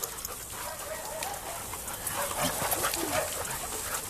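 A pack of dogs making many short, high-pitched whines and yelps as they run in and crowd together.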